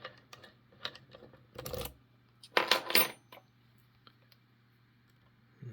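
Small metal lock-picking tools clicking and clinking against a Ruko five-pin oval lock cylinder. The clicks are scattered, with the loudest cluster about two and a half seconds in and a few faint ticks a little later.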